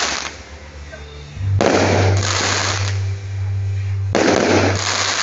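Aerial fireworks display: shells bursting overhead, each a loud burst of noise lasting over a second, about two and a half seconds apart.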